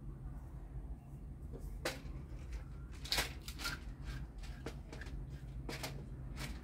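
Several light clicks and knocks, the strongest about two, three and six seconds in, over a steady low hum.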